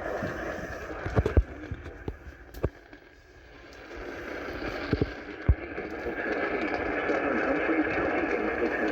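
Steady static-like hiss with a few sharp clicks. The hiss fades about three seconds in, then builds back up and holds steady.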